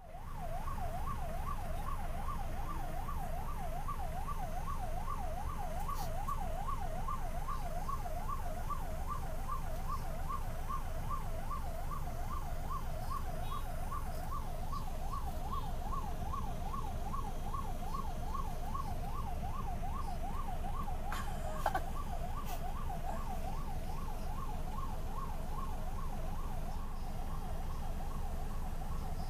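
Ambulance electronic siren on a fast yelp, sweeping up and down in pitch several times a second without a break, over the low rumble of idling traffic. A single short knock about three-quarters of the way through.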